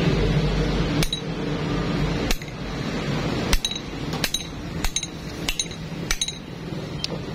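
Heavy hammer striking a welded steel bar: about seven sharp metallic clinks, each with a short ring. The first comes about a second in, and the rest follow from about three and a half seconds on, a little under a second apart. The blows test the strength of the weld.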